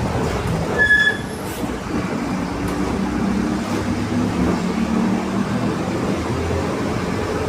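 Mercedes-Benz LO 916 bus underway, its 4.8-litre four-cylinder OM924 LA diesel running under the gear whine of the differential, a hum whose pitch drifts up and down. A short high beep sounds about a second in.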